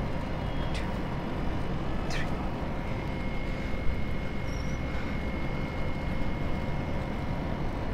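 Steady outdoor background noise with a low rumble and a faint steady hum, broken by two short high chirps falling in pitch, about one and two seconds in.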